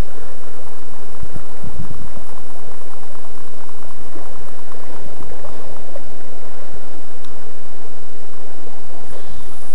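Shallow river current rushing steadily over a cobble bottom, with wind buffeting the microphone in low rumbles between about one and two seconds in.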